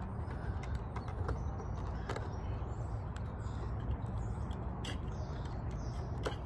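Steady low outdoor rumble, with a few light scattered clicks from a plastic action figure being handled and posed.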